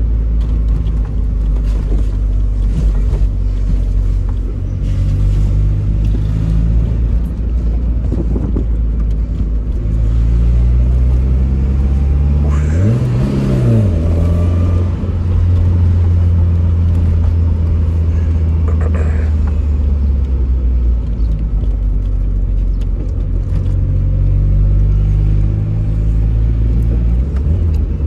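Tofaş Doğan SLX's four-cylinder engine heard from inside the cabin while driving, its pitch climbing and dropping back several times as the car accelerates and shifts gears. About 13 seconds in it revs up sharply and falls back within a second or so.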